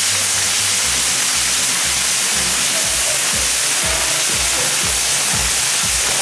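Mechanical firework wheel spinning, its coloured fountains hissing loudly and steadily, over music with a steady bass beat.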